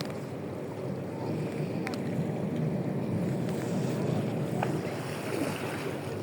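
Tour boat under way at sea: steady rushing noise of the boat moving through the water, with wind buffeting the microphone.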